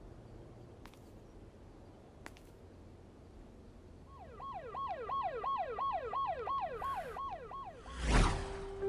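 Faint street background, then from about four seconds in a siren sounding in quick falling sweeps, about three a second, for some four seconds. Near the end comes a brief, loud rush of noise.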